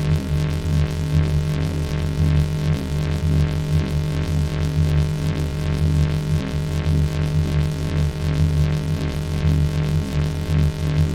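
Loud synthesized electronic drone: a low, steady buzzing hum made of many held tones, with a regular pulse a little over twice a second.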